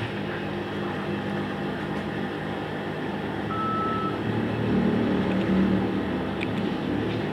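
Typical sewing machine running with a steady motor hum that grows louder for a second or two past the middle. A short high beep sounds about three and a half seconds in.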